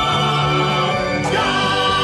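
A man belting one long held sung note over a full musical backing, moving to a new chord just over a second in.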